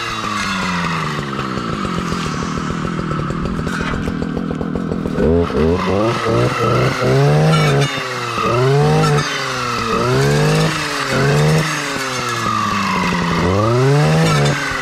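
Stihl clearing saw's two-stroke engine running at a steady pitch for the first few seconds, then revving up and down in repeated throttle bursts about once a second as the blade clears saplings and brush.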